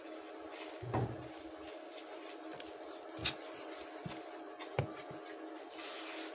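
A few light knocks and clicks from things being handled, with a short rustle near the end, over a steady hum.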